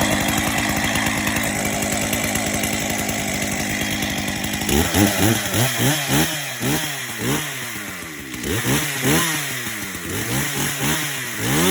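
STIHL MS 361 two-stroke chainsaw running at high revs. From about five seconds in the throttle is blipped over and over, the engine rising and falling in pitch about one and a half times a second.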